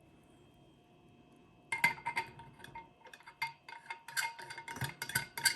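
Dishware being handled: a quick run of light clinks and taps with short ringing tones, starting about two seconds in and continuing irregularly to the end.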